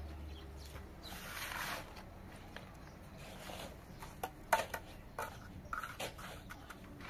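Masonry work on concrete blocks: a hand tool scrapes about a second in, then from about four seconds in comes a run of short sharp taps and clicks of metal tool on block and mortar, the loudest near the middle.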